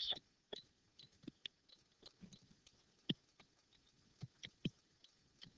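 Faint, irregular taps and clicks of a stylus on a tablet screen while writing, about seven small ticks spread across the quiet.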